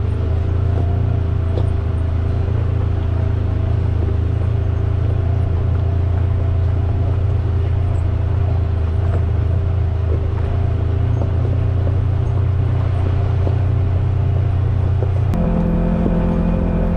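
Side-by-side UTV's engine running steadily under way, a loud, even, low drone. About fifteen seconds in, the note jumps abruptly to a higher pitch.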